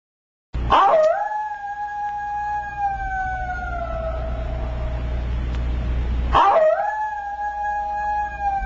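Two long howls. Each starts sharply, holds one pitch and slowly falls over about four seconds, and the second begins about six seconds after the first. A steady low hum runs underneath.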